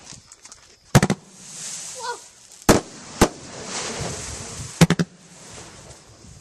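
Consumer fireworks going off in a finale: a run of loud, sharp bangs, a cluster about a second in, two more in the middle and a quick triple near the end, with a rising hiss between the bangs.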